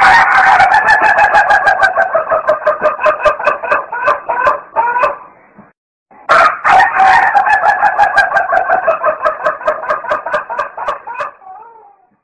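A rooster crowing twice, each crow a long drawn-out call of about five seconds with a fast quavering pulse running through it, slowly falling in pitch.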